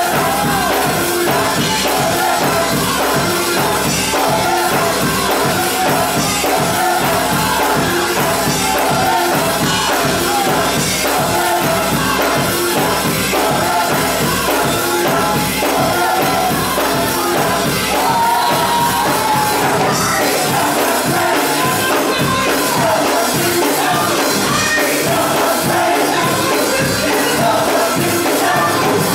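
Church choir singing with a band behind it and a steady drum beat; the deepest bass drops away about twenty seconds in.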